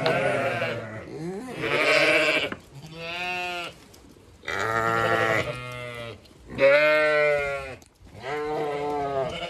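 Zwartbles ewes bleating one after another: about six long, wavering bleats from several sheep of the flock.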